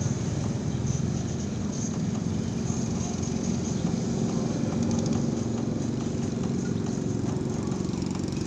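An engine running steadily, a low continuous drone.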